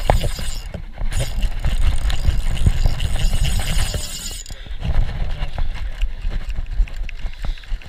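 Spinning reel being wound in under load, its gears and pawl clicking in a rapid rattle, over a heavy low rumble.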